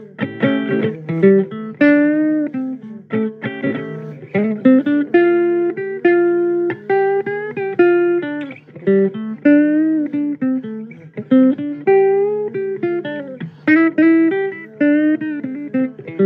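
Blues guitar playing an instrumental passage: a run of picked single notes, some bent in pitch, over a steady low note underneath.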